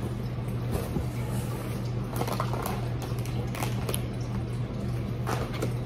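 Faint rustling and soft knocks of snack packets in a cardboard box as a child rummages through it, over a steady low hum.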